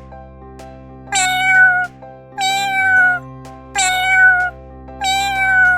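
Cat meowing four times in a row, each meow drawn out and falling slightly at the end, over light background music.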